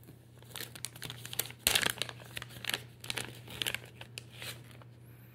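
Crinkling and rustling of a plastic soft-bait bag being handled and opened, in irregular bursts, loudest about two seconds in.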